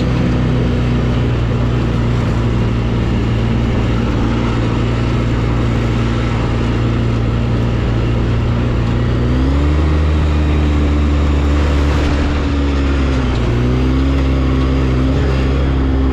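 Off-road vehicle engine running steadily under way, close to the microphone. Its pitch steps up about nine and a half seconds in and drops back a little about thirteen and a half seconds in.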